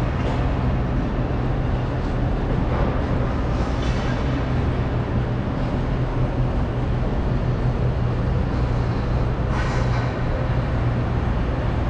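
Diesel semi-truck engine idling: a steady low drone.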